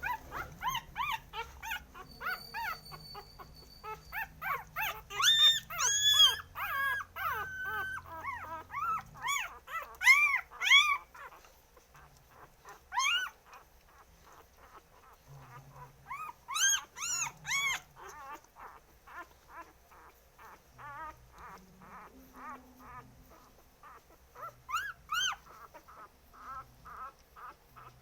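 Several puppies whining and yelping in many short, high cries that rise and fall in pitch, often overlapping. The cries are loudest in clusters about a third of the way in and again around the middle, then thin out into quieter whimpers.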